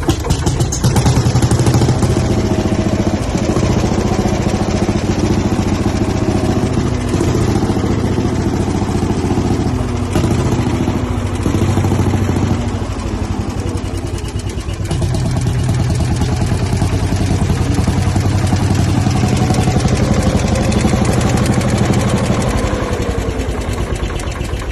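Lanz Bulldog tractor's single-cylinder two-stroke hot-bulb engine firing up and running with a fast, even chugging beat. Its speed sags briefly about halfway through, then picks up again.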